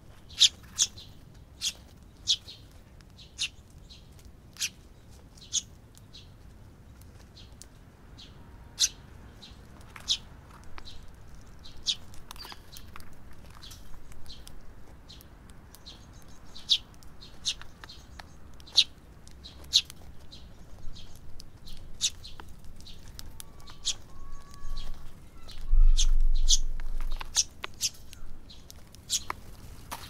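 Eurasian tree sparrow chirps: short, sharp calls at irregular intervals, about one a second at first and closer together later. A brief low rumble near the end is the loudest sound.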